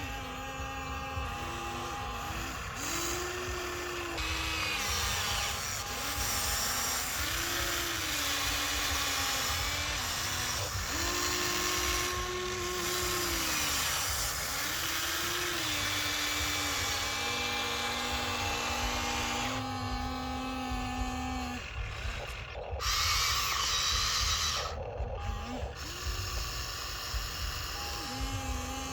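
Small electric motors of a toy excavator whirring, starting and stopping again and again, each run ramping up to a steady whine and dying away after a second or two.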